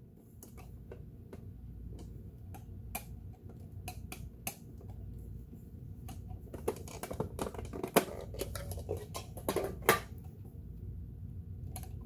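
Irregular small clicks and taps as fingers handle a Janome Memory Craft 8000's bobbin cover plate and needle plate. The clicks come thicker in the second half.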